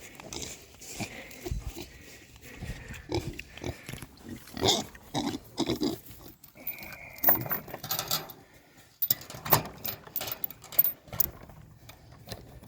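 Pigs grunting close by, in short irregular bursts, mixed with scattered clicks and knocks.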